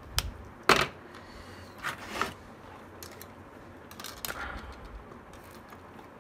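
A few sharp clicks and scrapes from a hand cutter working a length of blue hookup wire, the loudest about three-quarters of a second in, with smaller ones around two and four seconds in.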